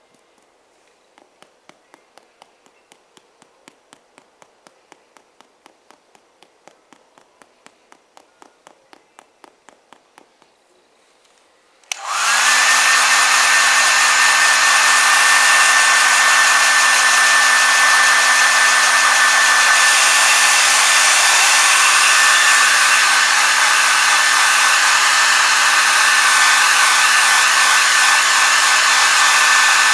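A run of light, even taps, about three a second. Then, about twelve seconds in, a hair dryer switches on and runs steadily with a constant whine, blowing hot air to cure the heat-cure filler compound in a leather repair.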